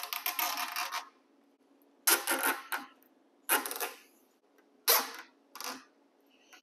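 Plastic fan-mount locking nuts being pushed down the ribbed push-through rods on an aluminum radiator, ratcheting in five short bursts of rapid clicking.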